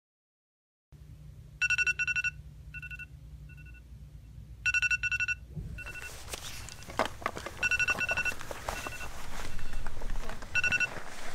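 Phone alarm ringing to wake sleepers: a burst of rapid high beeps followed by a few single beeps, repeating about every three seconds after a second of silence. Rustling and knocks build up under it from about halfway.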